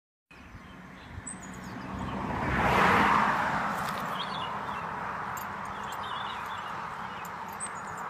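A vehicle passing on the road: its noise swells to a peak about three seconds in and then fades slowly. Faint chirps of small birds come through now and then.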